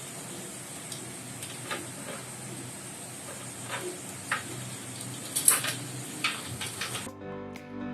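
A few light clicks and rustles from PC cables and connectors being handled and plugged in, over a steady hiss; the loudest click comes about five and a half seconds in. Background music starts suddenly near the end.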